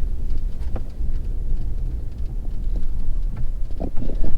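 Low, steady vehicle rumble.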